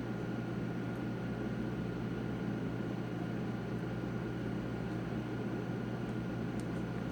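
Steady background hiss with a constant low hum and a faint high whine, with a few faint small ticks near the end.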